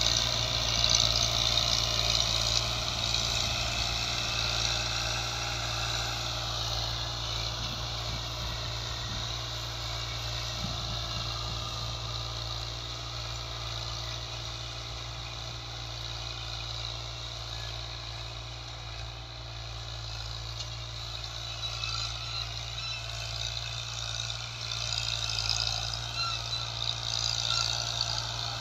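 Fiat 480 tractor's three-cylinder diesel engine running steadily under load while it pulls a nine-tine cultivator through ploughed soil.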